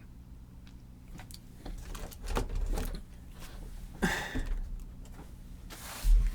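Scattered clicks, knocks and rustling of handling noise, with a heavier low thump near the end.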